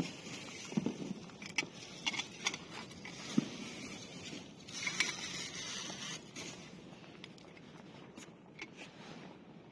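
Scattered clicks and knocks with rustling, scraping noise, thinning out in the second half.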